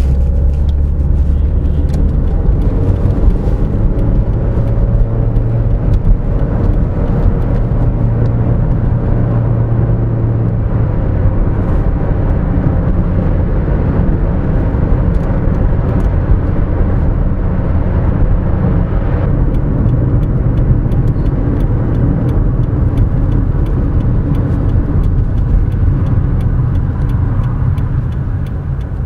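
Toyota RAV4's 2.0-litre petrol engine with CVT heard from inside the cabin while driving at road speed: a steady low drone of engine and tyre-and-road noise, easing slightly near the end.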